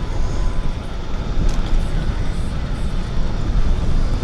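Wind buffeting a bike-mounted microphone while riding a hybrid bicycle, with tyre noise on the path, making a steady low rumble; a faint short tick about one and a half seconds in.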